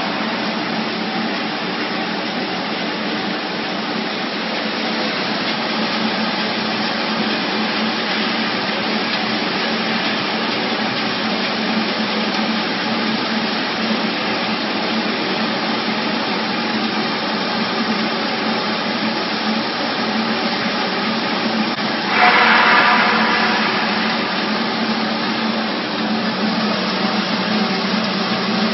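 Chicken manure granulator machine running with a steady whirring rush. About three-quarters of the way through it becomes louder and brighter.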